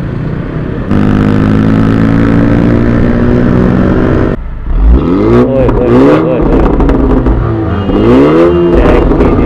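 A vehicle engine running at a steady high drone that cuts off about four seconds in. It is then revved up and down in quick blips twice over, with sharp pops among the revs.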